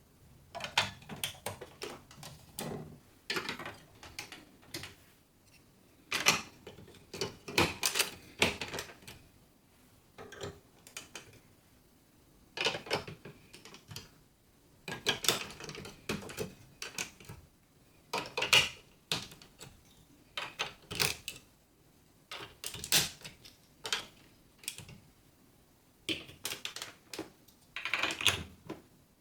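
Marbles rolling and clattering through a building-block marble run: bursts of quick clicks and clacks, grouped every second or two.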